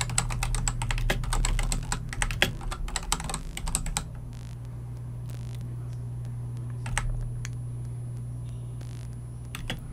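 Typing on a computer keyboard: a quick run of keystrokes for about four seconds, then a couple of single keystrokes later on, over a steady low hum.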